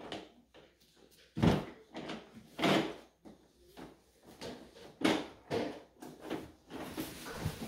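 Irregular hollow plastic knocks and thuds as a baby crawls onto a plastic playpen panel lying flat on the floor and bumps and presses it, with the loudest thumps about a second and a half and just under three seconds in.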